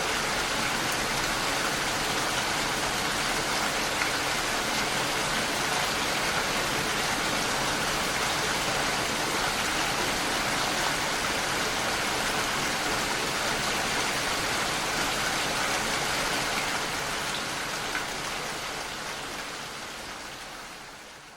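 Steady rain falling, an even rushing hiss of many drops, fading out over the last few seconds.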